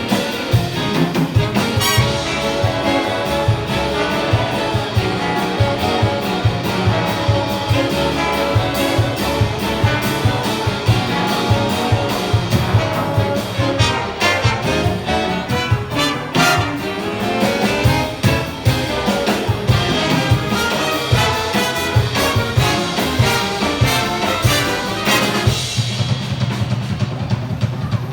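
Big band playing jazz, with trumpets and trombones in full ensemble over a drum kit. About three seconds before the end the horns drop away, leaving the drums and low instruments.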